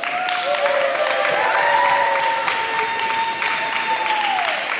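Gym crowd clapping and cheering, with several long drawn-out whoops that climb in pitch and hold, then trail off near the end.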